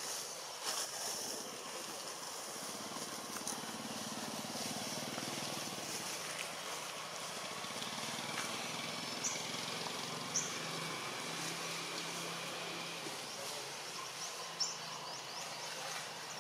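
Outdoor background noise with a low engine drone setting in a few seconds in, and three short high chirps, two near the middle and one toward the end.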